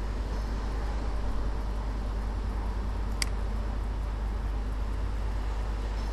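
Steady background hum and hiss, with a single sharp computer-mouse click about three seconds in.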